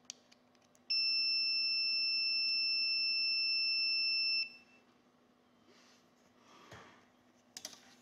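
VC99 digital multimeter's continuity beeper sounding one steady high beep for about three and a half seconds while the two test probe tips are shorted together, showing the beeper works. There is a click just before it and a few small clicks from the probes being handled near the end.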